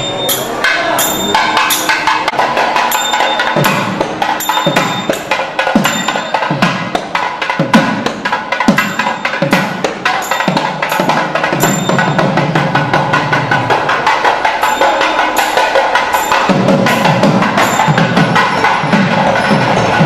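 Temple procession percussion music: drums beating about once a second with sharp, ringing strikes over a dense, continuous rhythm.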